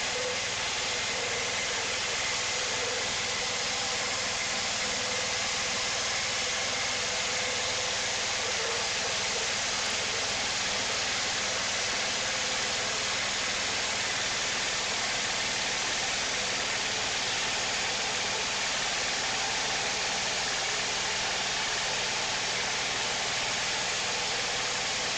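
Wood-Mizer portable sawmill's engine running steadily, an even mechanical drone with a hiss over it and no change in pitch or level.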